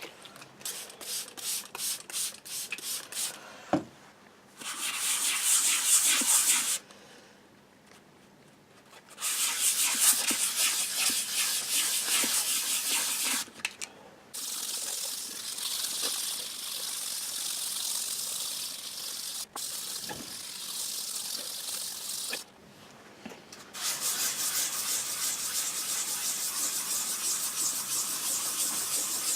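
Fine 2000-grit wet-sanding paper rubbed over the cured lacquer finish of a guitar body to flatten it. A run of short quick strokes opens, then long stretches of steady rubbing broken by brief pauses.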